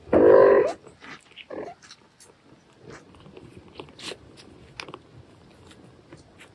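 A cat's loud meow at the start, then a shorter, quieter mew about a second and a half in, followed by scattered soft clicks.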